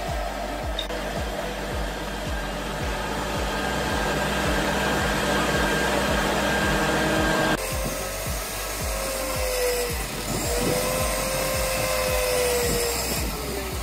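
Background music with a steady beat of about two beats a second, over a steady machine-like noise. The sound changes abruptly about halfway through, and a few gliding pitched notes follow.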